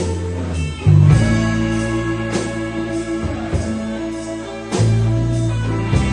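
Rock band music: guitar over a deep bass line, with a sharp beat about every second. The bass note shifts about a second in and again near the five-second mark.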